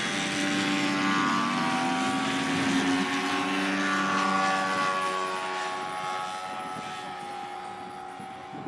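Engines of three RC model RV-4 aircraft taking off together, several propeller engine notes overlapping and shifting in pitch, fading as the planes climb away near the end.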